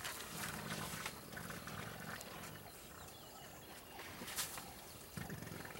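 African elephant making a low, rumbling sound for about two seconds near the start, with a shorter rumble near the end.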